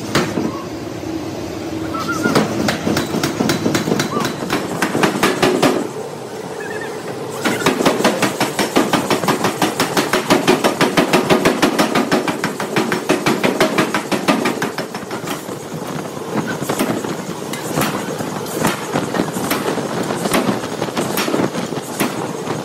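Rapid, regular hammer-like knocks on metal, several a second, with a brief lull about six seconds in and loudest just after it.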